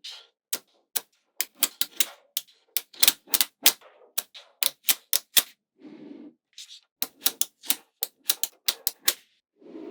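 Small magnetic balls snapping onto one another with sharp, irregular clicks, a few a second, with a brief duller scraping or rolling sound about halfway through.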